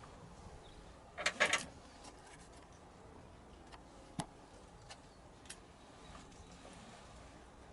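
A quick clatter of sharp clicks about a second in, then a few single clicks, like small hard parts being handled.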